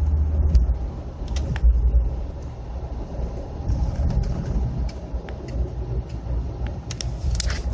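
Car cabin rumble while driving: steady low engine and road noise, with a few short clicks near the end.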